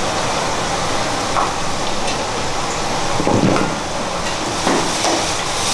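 A steady hiss, like food frying, with a few soft knocks as green long beans are cut with a knife into a stainless steel bowl.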